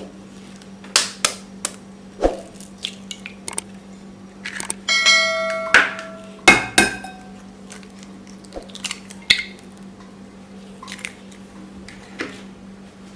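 Three eggs being knocked and cracked against the rim of a mixing bowl: a series of sharp taps and clicks, one knock about five seconds in setting the bowl ringing briefly.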